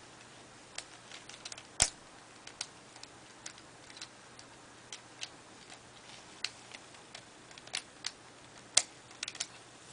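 Plastic pieces of a V-Cube 5 puzzle clicking and snapping as they are pressed into place, a scatter of light clicks with two sharper snaps, one about two seconds in and one near the end.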